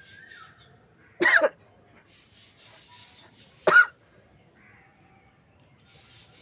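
A woman sneezing twice, about two and a half seconds apart, each a short loud burst; the sneezes are forced by tickling her nose with a blade of grass.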